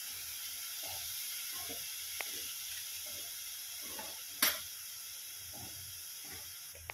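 Ground onion, coconut and tomato masala paste sizzling in oil in a kadhai, a steady hiss: the paste is fried and the oil has separated from it. A single sharp click about four and a half seconds in.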